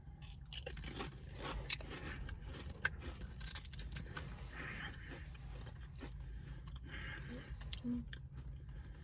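Two people biting and chewing Pringles Harvest Blends potato crisps: a run of sharp crackly crunches, thickest in the first few seconds, then softer chewing, over a low steady hum.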